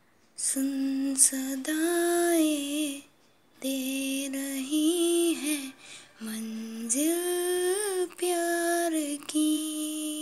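A female voice singing a melody unaccompanied, in about four phrases of held, wavering notes separated by short pauses for breath.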